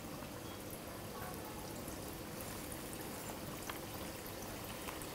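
Shankarpali (sweet maida-dough diamonds) deep-frying in oil at medium heat: a soft, steady sizzle of bubbling oil with faint crackles.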